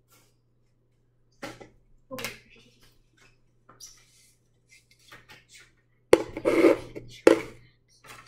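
Chips rattling and clicking in a cardboard chip tube as it is shaken and tipped over a hard taco shell, then two loud knocks about a second apart near the end.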